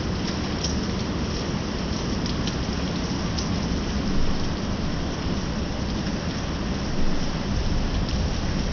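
Heavy rain pouring steadily, with two brief low swells in the sound about four and seven seconds in.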